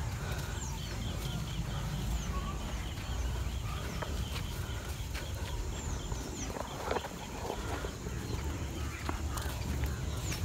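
Birds calling outdoors: short high chirps that fall in pitch, a quick run of repeated notes in the first few seconds, and a few lower calls around the middle and near the end, over a steady low rumble.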